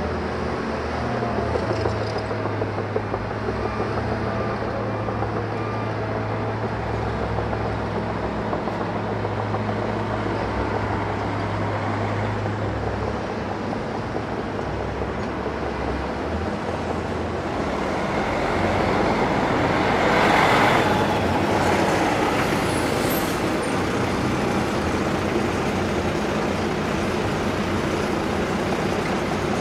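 Diesel engines of heavy construction machinery running steadily, with a low hum. About twenty seconds in the sound swells louder for a few seconds, then settles back.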